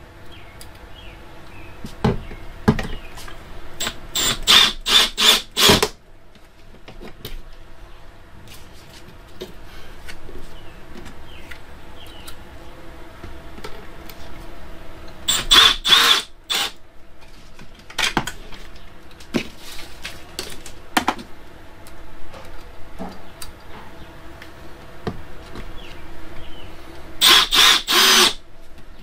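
Cordless drill-driver driving screws into the floor, in three short bursts of several quick trigger pulses each, with small clicks and handling knocks in between.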